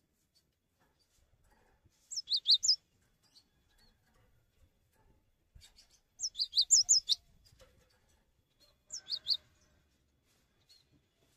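Cinereous tit (gelatik batu) singing: three short bursts of quick high notes that alternate up and down in pitch, a few seconds apart.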